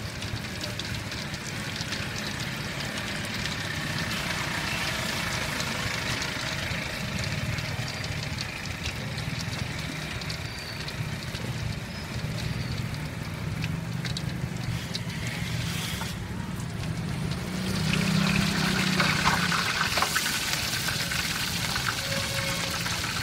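Outdoor street-food stall background noise: a steady hiss over a low motor-like hum, getting louder about 18 seconds in.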